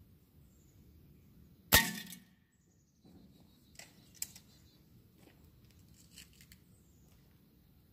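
A single shot from a Crosman F4 air rifle about two seconds in: a sharp crack that dies away within half a second. A few faint clicks follow later.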